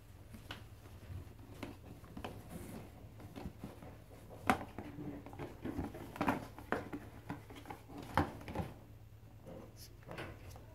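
Paper shopping bag and the tissue inside it being handled and rummaged through: rustling and crinkling paper with sharp clicks and knocks, the loudest about four and a half, six and eight seconds in. A low steady hum runs underneath.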